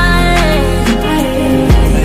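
Background pop song with a steady drum beat, deep bass and a sung melody line.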